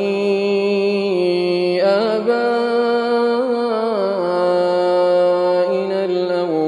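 A man's voice reciting the Quran in melodic tajweed, drawing one phrase out in long held notes that step up and down in pitch with small ornamental turns.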